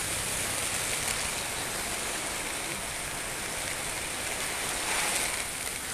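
Torrential rain pouring down, a dense and steady hiss that swells slightly about five seconds in.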